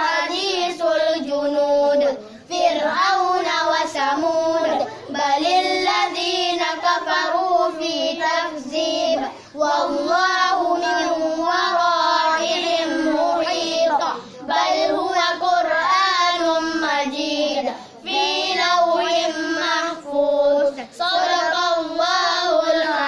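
A boy reciting the Quran in Arabic, chanted melodically with long, wavering held notes, broken by several short pauses for breath.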